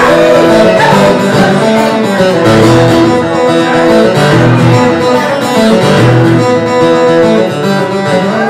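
Live acoustic guitar and stage piano playing a song together.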